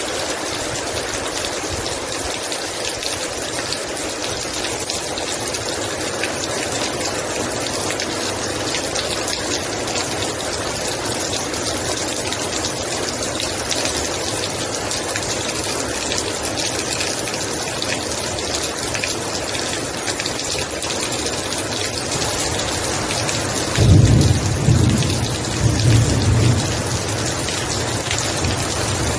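Heavy rain falling in a steady, even downpour. Near the end a low rumble of thunder breaks in and rolls on in a few swells for about three seconds.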